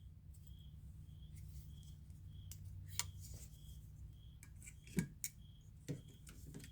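A few sharp metallic clicks from folding pocket knives being handled, the loudest about three, five and six seconds in. Under them runs a low steady hum and a faint high chirp repeating about every half second.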